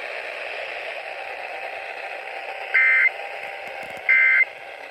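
Weather-radio broadcast hiss, then about three seconds in two short, buzzy data bursts of the Emergency Alert System end-of-message code (a third follows just after). Together they signal that the severe thunderstorm warning broadcast is over.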